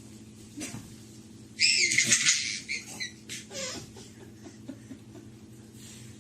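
A baby's loud, high-pitched squeal lasting about a second and a half, wavering in pitch, followed by a few softer squeaks.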